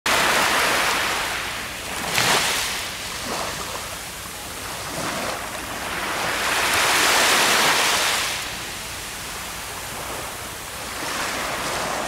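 Surf: small waves washing up over sand and drawing back, a hiss of water that swells and fades in slow surges, loudest at the start, briefly just after two seconds, and again around seven seconds in.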